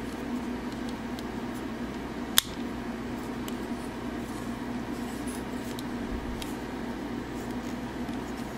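Plastic parts of a 52Toys BeastBox transforming figure clicking and tapping faintly as they are folded and lined up. One sharp click comes about two and a half seconds in. A steady low hum lies under it all.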